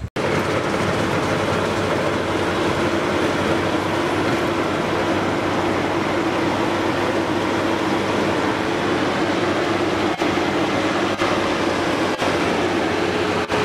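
Combine harvester running steadily as it cuts and threshes paddy, a continuous mechanical drone with a hum over dense machine noise.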